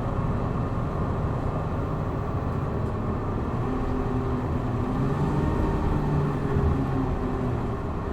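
Hino Blue Ribbon city bus's diesel engine running under load, heard from inside the cabin. The engine note rises from about halfway through as the bus pulls harder, then eases near the end.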